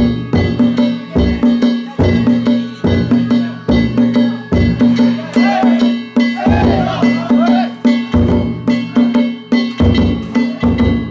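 Danjiri float's festival percussion (narimono): taiko drum and hand gongs struck in a steady, fast, unbroken rhythm, with the gongs ringing on between strokes.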